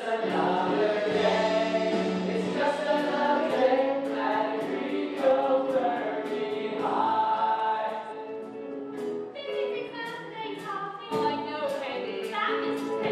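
A stage-musical ensemble singing together over musical accompaniment with a steady percussion beat.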